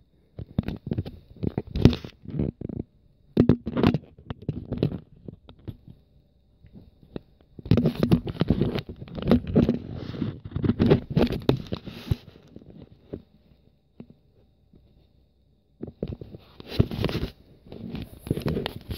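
Handling noise from a phone's microphone rubbing and scraping against fabric or a hand, in irregular bursts with a quiet spell about two-thirds of the way through.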